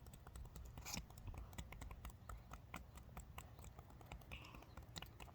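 Faint, irregular scraping and clicking of a small digging tool chipping at a dinosaur dig kit egg, with a sharper knock about a second in.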